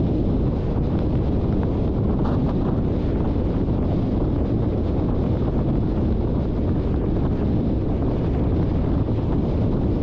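Steady low rumble of road and wind noise from a moving car, the wind buffeting the microphone, with no distinct events.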